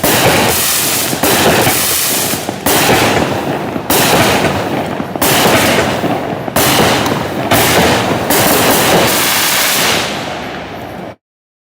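Black Cat 'Fear City' fireworks cake firing: about seven loud shots come one every second and a half or so, each a mine launch followed by aerial breaks with crackle. The sound cuts off suddenly near the end.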